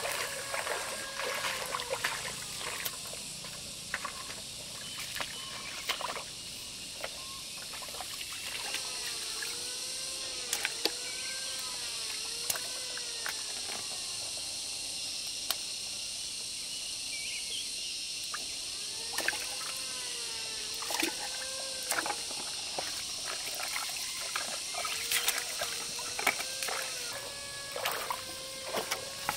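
Water trickling and dripping, with many small knocks and clicks, over a steady high hiss. Twice a run of repeated rising-and-falling tones is heard.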